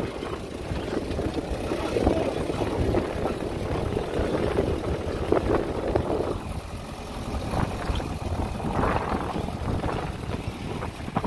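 A motor vehicle's engine running, with a continuous low rumble.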